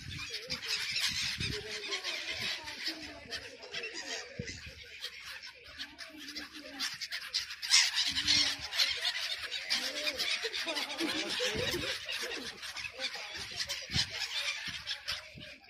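A flock of sea birds crowding in to be hand-fed, calling and squawking without a break, with many calls overlapping. The calls grow louder for a moment a little past the middle.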